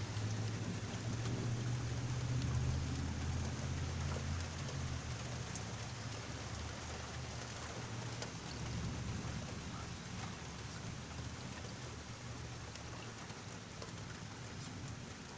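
Heavy rain pouring steadily during a thunderstorm, with a deep rumble of thunder that is loudest in the first few seconds and slowly dies away.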